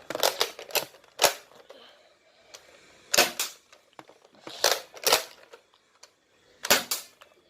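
Toy Nerf dart blaster being primed and fired: four groups of sharp plastic clicks and snaps, the first group of several near the start and then pairs about every one and a half seconds.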